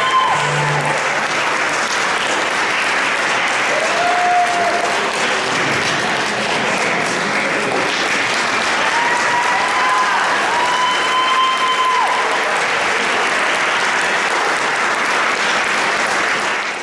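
Audience applauding, with a few held cheers ringing out over the clapping; it fades out abruptly at the very end.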